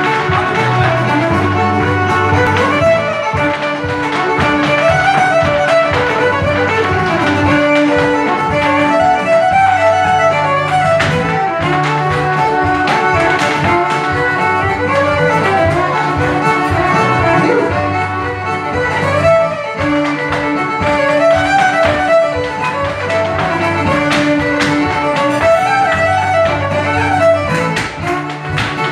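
Live Irish traditional dance tune played on fiddle with strummed acoustic guitar accompaniment, lively and rhythmic.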